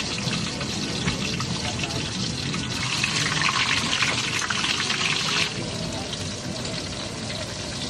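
Oil sizzling and crackling in a small frying pan on a camping gas stove as pieces of food are laid in. It grows louder for a few seconds, then drops suddenly about five and a half seconds in.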